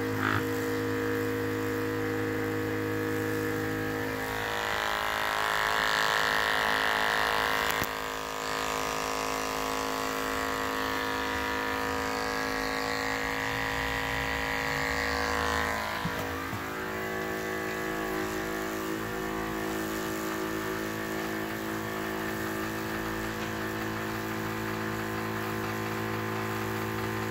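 Small electric oil-extraction pump running steadily, drawing used engine oil up through the dipstick tube into a bottle; its tone shifts a few times.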